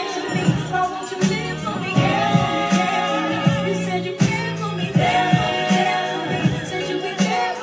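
Music: a song with sung vocals, held notes with vibrato, over a beat.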